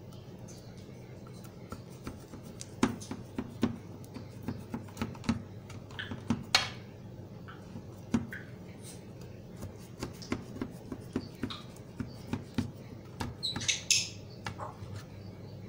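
Knife pressing through half-set peanut and roasted chana jaggery chikki in a metal baking tin: irregular crunchy clicks and cracks, several a second, with a few louder snaps as the blade breaks through the nuts.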